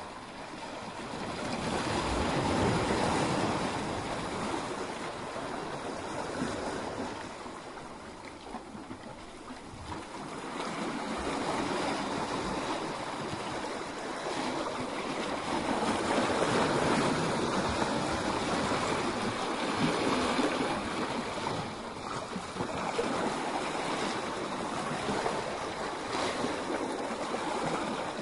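Sea waves breaking and surging against a rocky shore: a continuous rush of surf and foaming water. It swells and eases, loudest about three seconds in and again from about sixteen to twenty seconds, with a lull around eight to nine seconds.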